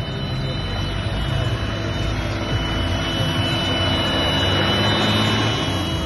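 A car driving past close by on a paving-stone street, its engine and tyre noise swelling to a peak about five seconds in and then dropping away.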